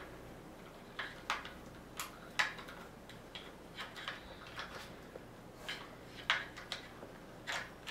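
Irregular small clicks and taps of hard plastic as a Tails action figure's arms are posed and the figure is fitted into a plastic toy airplane.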